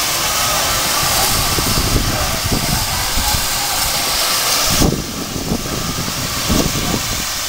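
Steam locomotive hissing steam, a steady hiss that cuts off abruptly about five seconds in, with irregular low thumps underneath.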